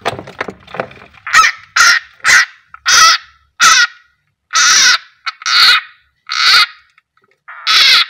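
A frog screaming in distress while held in the jaws of a king koros snake (Ptyas carinata): about nine loud screams, roughly one a second, the later ones a little longer.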